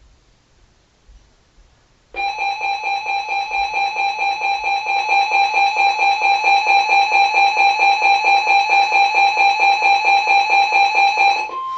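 Weather alert radio's built-in alarm going off for an incoming severe thunderstorm warning: a loud, rapidly pulsing electronic beep, about four pulses a second, starting about two seconds in and running for about nine seconds. Just before the end it gives way to a single steady tone, the weather radio warning alarm tone.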